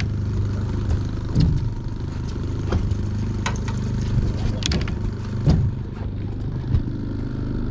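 Boat outboard motor running steadily at trolling speed, with a few short sharp knocks and clicks scattered through.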